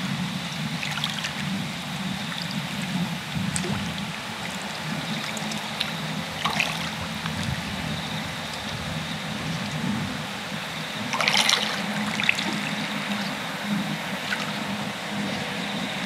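Small waves lapping and trickling in shallow tidal-flat water, over a low steady hum, with a couple of brief small splashes about six and eleven seconds in.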